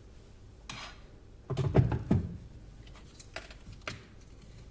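Plastic spoon scraping and knocking against hardened chocolate in a container. A short scrape comes first, then a loud cluster of knocks about one and a half seconds in, then a few lighter clicks.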